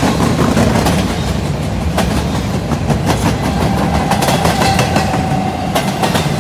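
Freight train of empty intermodal well cars rolling past on straight track: a steady rumble of steel wheels on rail, broken by occasional sharp clicks, with a faint ringing tone for about two seconds in the middle.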